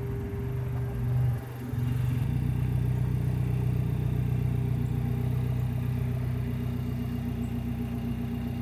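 Car-transporter truck's winch machinery running with a steady engine-like hum as the car is pulled up the loading ramp. The hum settles and grows louder about two seconds in.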